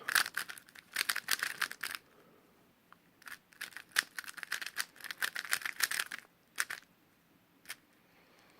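A 3x3 speedcube being turned quickly by hand: fast runs of plastic clicks and clacks as the layers turn. There are two spells of turning with a short pause about two seconds in, then a couple of single clacks near the end.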